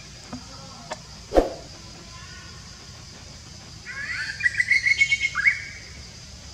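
A bird chirping in a quick run of short notes about four seconds in, ending on a rising note, after a few faint clicks and a sharp knock about a second and a half in.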